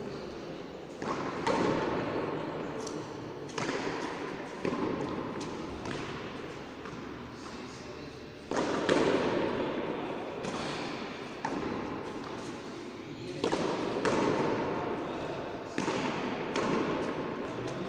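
A frontón ball struck back and forth, smacking against the wall and court in sharp knocks one to three seconds apart, each with a reverberant echo, over background voices.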